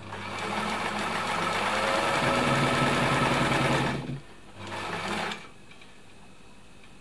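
1972 Elna Supermatic SU 62C sewing machine sewing a zigzag stitch through cloth. It runs up to speed over the first two seconds and stops about four seconds in, then makes one short second run of about a second.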